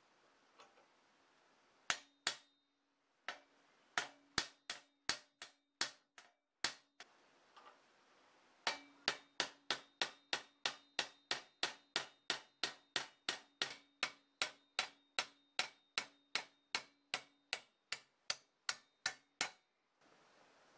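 Hammer striking a steel pin punch to drive a rivet out of a coal shovel's steel socket resting on an anvil: sharp metallic taps, each with a short ring. A few irregular taps come first, then a steady run of about two and a half a second that stops shortly before the end.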